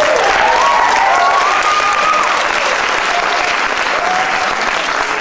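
Audience applauding, with a few cheering voices over the clapping in the first couple of seconds.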